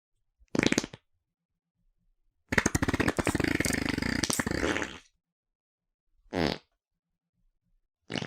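A run of separate fart sound effects, each cut off into dead silence: a short one about half a second in, a long sputtering one of about two and a half seconds with rapid pulses, and another short one near the end.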